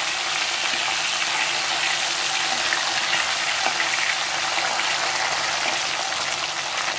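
Whole shorputi fish shallow-frying in hot oil in a wok, a steady sizzling hiss with scattered small crackles.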